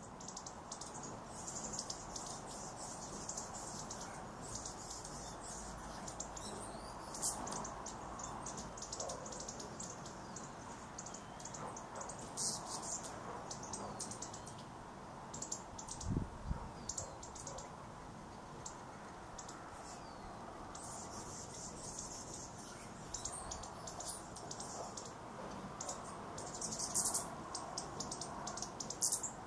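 Hummingbirds chipping and twittering at a feeder: runs of rapid, high, dry chips come and go throughout. There is a single soft low thump a little past halfway.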